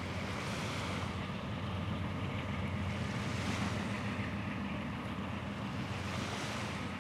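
A passing train: a steady rumble with a low hum under it and a hiss that swells about every three seconds.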